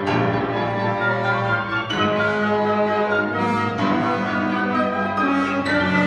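Classical piano concerto performed live: a grand piano plays with a string orchestra accompanying, in a concert hall.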